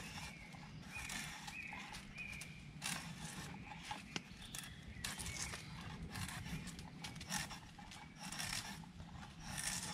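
A bushcraft knife blade pulled like a drawknife along a branch, shaving off bark and wood in a series of short rasping strokes, roughly one a second.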